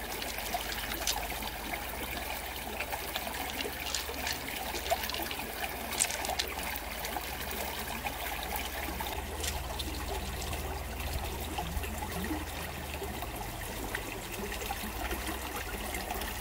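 Shallow stream trickling steadily over rocks, with a few short sharp clicks scattered through.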